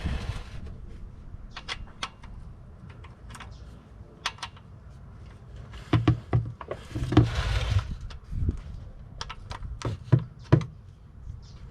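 Hand tools working the oil pan drain plug: a scatter of sharp, irregular metal clicks and clinks, with two short bursts of hiss, one at the start and one about seven seconds in.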